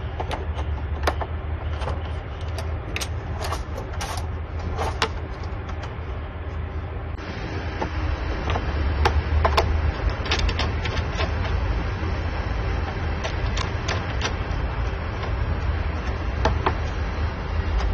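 Screwdriver tightening wire terminal screws on a circuit breaker: scattered small clicks and scrapes of the tool and wires, over a steady low rumble.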